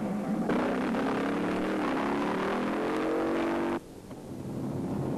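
1966 Plymouth Satellite's 426 Hemi V8 launching and accelerating hard from a drag-strip start, its engine note climbing steadily in pitch. The sound cuts off suddenly near the end, leaving a quieter engine hum.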